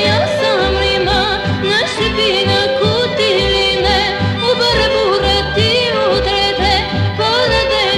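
Albanian song: a voice singing a wavering, heavily ornamented melody over instrumental accompaniment with a steady low bass pulse.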